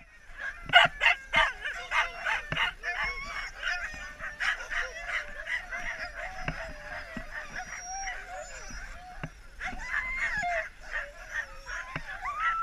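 A team of harnessed sled huskies barking, yelping and whining all at once, many dogs overlapping without pause.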